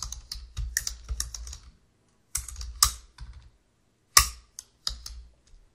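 Typing on a computer keyboard: a quick run of keystrokes for about two seconds, then a few scattered key presses, with one sharp, louder keystroke about four seconds in.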